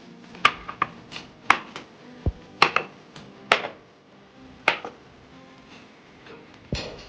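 Irregular sharp clicks and clinks of dishes and utensils being handled, about a dozen in a few seconds, with one duller thump a little past two seconds in.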